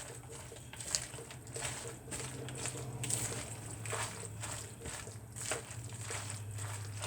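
Soft, irregular clicks and light scrapes of kitchen utensils and containers being handled, over a steady low hum.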